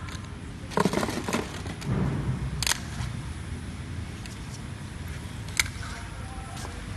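White plastic flip-lid boxes clicking and clattering as a hand pushes and slides them on a table. There is a cluster of knocks about a second in, then single sharp clicks near three seconds and again after five and a half seconds, over a steady low hum.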